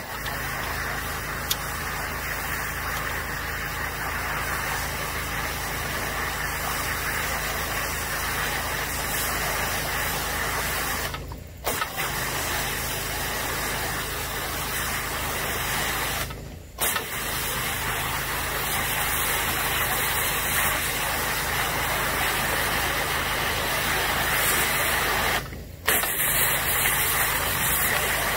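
High-pressure water jetting from a hydrojet pressure-washer attachment run along a gutter under perforated metal gutter guards, flushing out packed roof-granule debris. The spray cuts off briefly three times, and a steady low motor hum runs underneath throughout.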